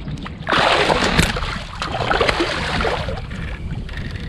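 Water splashing hard beside a kayak from a hooked sevengill shark thrashing at the surface. There are two bursts: a loud one starting about half a second in, then a weaker one about a second later.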